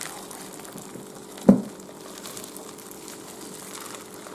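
Hands squeezing and kneading a sticky snow slime made of glue and grated styrofoam in a glass bowl, with one sharp thump about a second and a half in.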